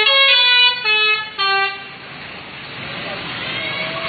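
A bus's multi-tone 'telolet' musical horn playing a quick run of about four notes at different pitches, stopping about two seconds in. After it comes a steady noisy rush that slowly grows louder.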